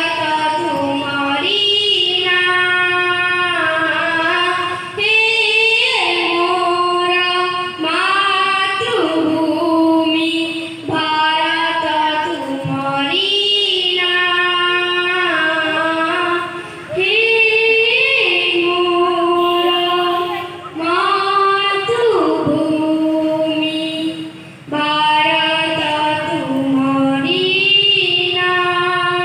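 A child singing a song solo into a microphone, amplified through loudspeakers, in phrases of a few seconds with short breaks for breath between them.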